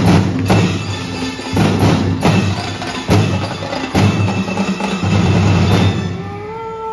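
Sinulog street-dance percussion music: loud, sharp drum hits at an uneven beat over sustained low tones. Near the end the drumming drops away and a held high note begins, sliding up into pitch.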